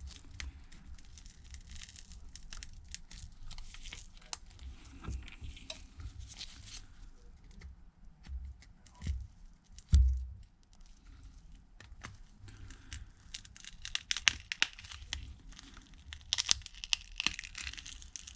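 A pry tool being worked under a phone's broken screen glass, scraping and crackling with many small clicks as it separates the screen from the frame. There is one loud thump about ten seconds in, and the crackling grows denser near the end.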